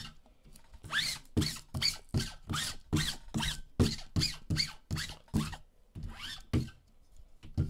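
Sticky lint roller rolled back and forth over a fabric mat: a quick run of strokes, about three a second, that eases off over the last two seconds.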